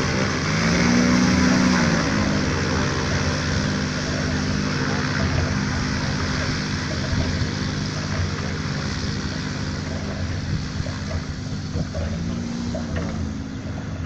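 Microlight aircraft's propeller engine running on the ground. Its note rises and falls back about a second in, then holds steady.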